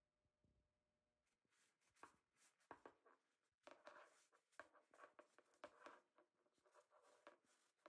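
Faint, irregular rustling and rubbing of a paper towel wiping the steel blades of a pair of scissors clean, starting about a second in.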